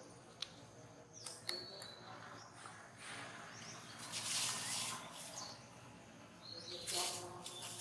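Outdoor ambience with birds chirping now and then in short high calls, a few light clicks, and a louder hiss of noise swelling about four seconds in and again near the end.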